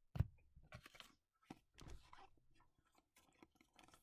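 Faint handling noise of trading cards and clear plastic penny sleeves: a light knock just after the start, then a few short scratchy rustles as cards are slid into the sleeves.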